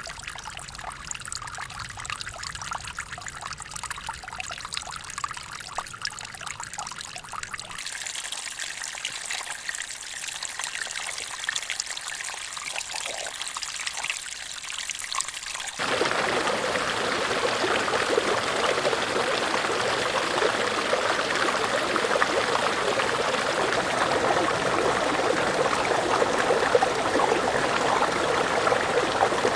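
Waterfall recordings: steady rushing and splashing water heard as three separate takes. The sound changes abruptly about 8 seconds and 16 seconds in. The last take is the loudest and fullest.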